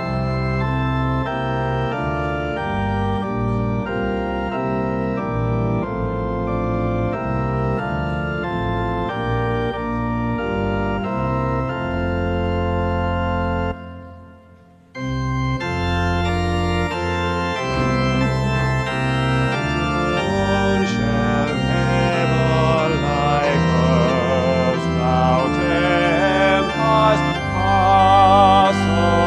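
Church organ playing a hymn in held chords. It stops for about a second halfway through, then starts again, and a few seconds later the congregation's singing joins in over it.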